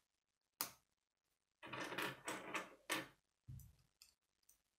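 Plastic K'nex connectors and rods being handled and snapped together. There is a sharp click about half a second in, a stretch of rattling clicks in the middle, a dull knock, and a few lighter clicks near the end.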